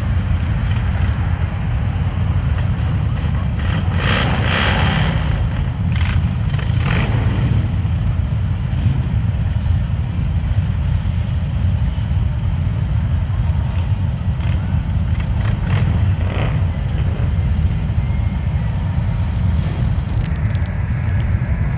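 A large group of Harley-Davidson motorcycles running together: a steady low rumble of V-twin engines, swelling louder briefly about four and seven seconds in.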